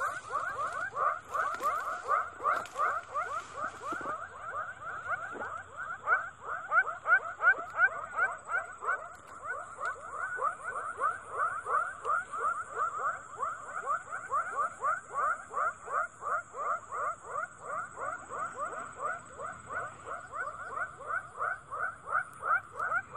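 Frogs calling in a fast, unbroken series of short croaks, several a second, with a steady high insect whine over them.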